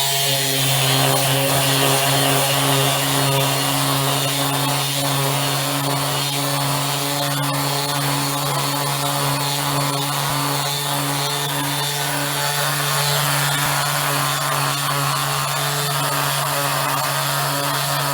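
Cordless palm sander running steadily, a constant motor hum with a hiss of abrasive on wood, sanding down the frayed fuzz that an up-cutting router bit left on a CNC-cut wooden piece.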